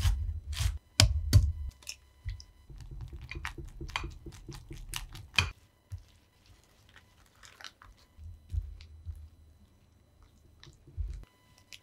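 Chef's knife chopping fresh herbs on a wooden cutting board: crisp chops, with a quick run of them a few seconds in. About halfway it turns much quieter, with soft scraping and stirring from a silicone spatula working a wet herb mixture and a thick batter.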